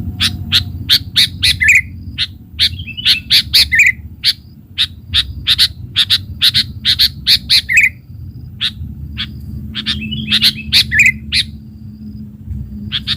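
Sooty-headed bulbul (kutilang) calling: runs of short sharp chip notes, broken every few seconds by a brief bubbling phrase that drops in pitch, over a low steady rumble.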